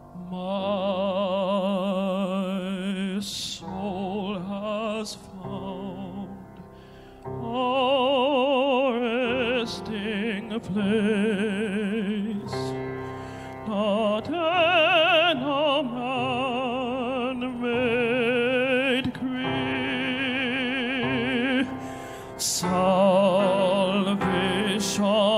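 Male vocal trio singing a hymn in harmony, with wide vibrato on long held notes and short breaths between phrases.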